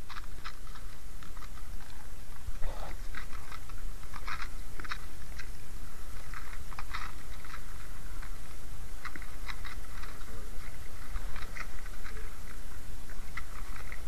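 Wet cast net being worked by hand over a bucket to free small fish (ikan bilih): irregular light crackling and clicking of the mesh and the fish, over a steady low rumble.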